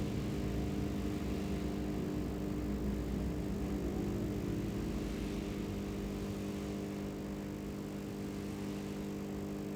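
A steady low machine hum made of several constant tones, with a faint hiss above it and no rhythm or change in pitch.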